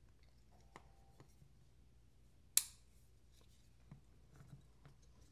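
Faint ticks and scrapes of metal folding-knife parts being worked by hand while trying to press out a stuck captive pivot. About two and a half seconds in comes one sharp metallic click that rings briefly.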